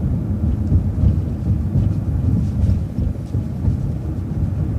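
City transit bus under way: a steady, loud low rumble of engine and road noise heard from inside the bus.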